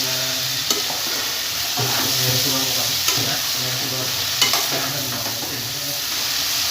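Food sizzling in a frying pan as it is stirred, with a steady hiss and a utensil scraping against the pan about every second.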